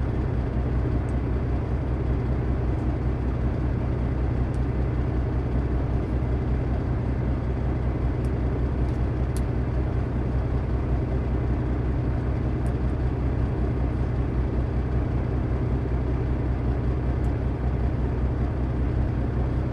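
Diesel engine idling, a steady low drone, with a few faint clicks scattered through it.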